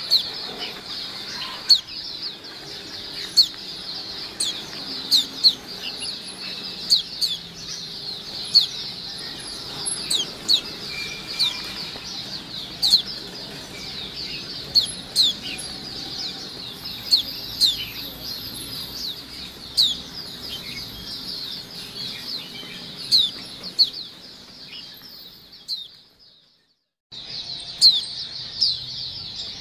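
A flock of caged white-eyes (pleci) chirping together in a dense, continuous chatter of short, high, downward-sliding calls, with louder single chirps standing out about once a second. The chatter fades and cuts out for about a second near the end, then resumes.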